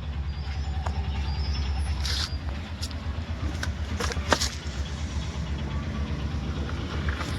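A few sharp metallic clinks and knocks from tools and parts as a new steering rack is fitted into a car, over a steady low rumble.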